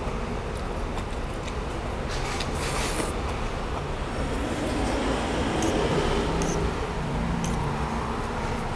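Steady rumble of motor-vehicle or road-traffic noise, with a few faint clicks.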